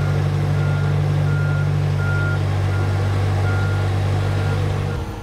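Reversing alarm of an airport ground vehicle beeping at a steady pace, about one beep every three quarters of a second, over the loud steady low drone of its running engine. Both stop just before the end.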